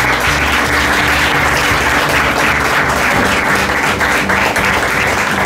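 An audience applauding, a dense, steady patter of many hands clapping, with faint background music underneath.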